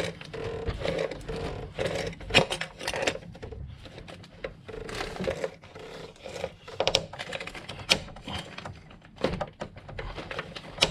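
Irregular clicks and scraping of a band-type oil filter wrench being worked around the oil filter cap, tightening it down onto the BMW N52 engine's oil filter housing.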